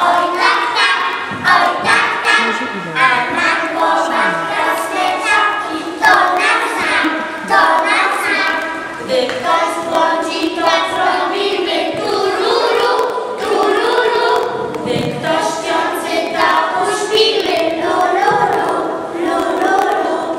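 A group of young kindergarten children singing a song together in unison.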